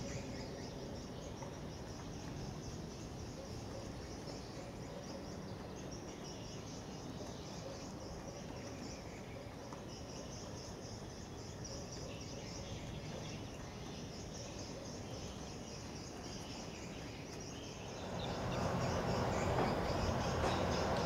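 Insects chirping steadily in a high, finely pulsing band over a low outdoor rumble. About three seconds before the end, a louder, steady rumbling noise comes in.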